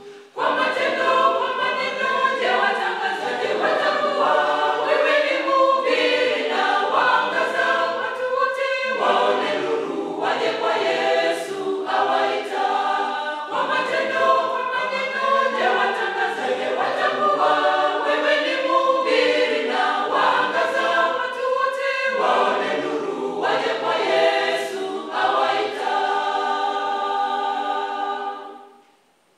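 Mixed church choir of women's and men's voices singing a gospel song a cappella in harmony. It ends on a long held final chord that dies away near the end.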